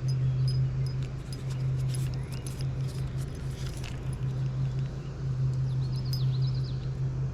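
A steady low hum, with scattered light clicks and ticks and a few short high chirps about six seconds in.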